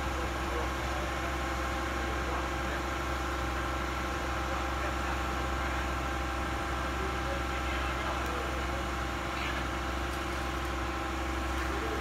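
Truck-mounted concrete boom pump's diesel engine running steadily while pumping concrete, a constant drone with several steady tones.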